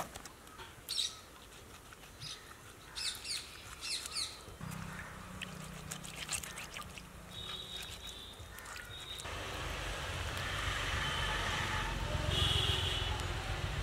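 Birds chirp briefly in the first few seconds, then a low steady hum sets in. From about nine seconds in, water pours and splashes steadily over salted dried fish.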